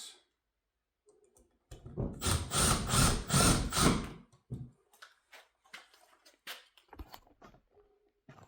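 Cordless power driver running for about two seconds, with a rapid pulsing chatter. It is followed by scattered light clicks and knocks of handling.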